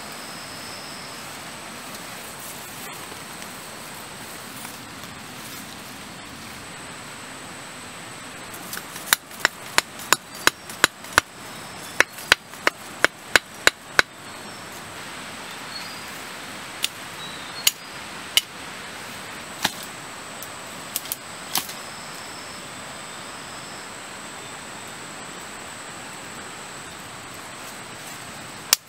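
Broad-bladed knife chopping into the soil to dig a hole: a quick run of sharp strikes about three a second, then a handful of scattered strikes, over a steady forest hiss.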